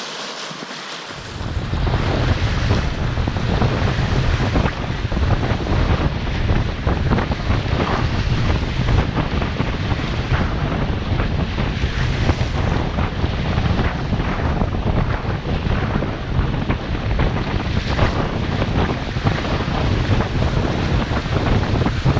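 Strong wind buffeting the microphone over waves breaking and splashing against a rocky lakeshore. About a second in, a quieter sound of lapping water gives way suddenly to the loud wind rumble, which then holds steady.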